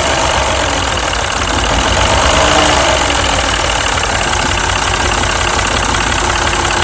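A Mini's four-cylinder petrol engine idling roughly with a bad misfire. The misfire comes from a failed pencil ignition coil on cylinder 3.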